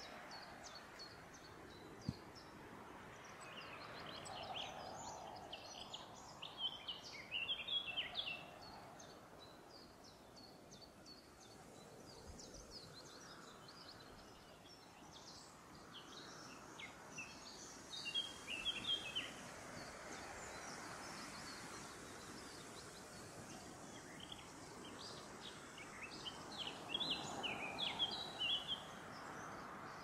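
Songbirds singing in a forest. A burst of rapid high song notes comes three times, roughly every ten seconds, with softer scattered chirps between, over a steady soft background hiss.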